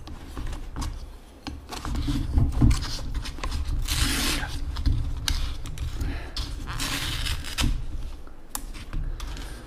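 The lid of a kimchi cup-ramyun bowl being peeled back and pulled off close to the microphone: rustling, scraping and crinkling, with two louder tearing rasps about four and seven seconds in.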